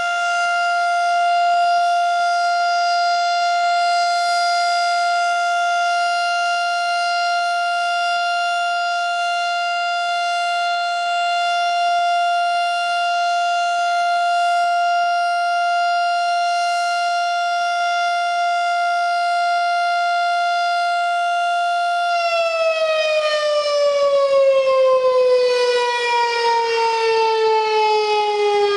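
Darley STH-10 mechanical outdoor warning siren sounding a steady tone during a siren test. It holds one high, unwavering note for about twenty-two seconds, then the pitch falls steadily as the siren begins to wind down.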